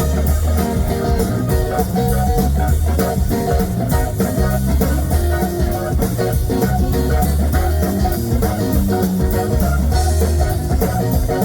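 Live blues band playing an instrumental passage, with electric guitar over bass and drums in a steady beat.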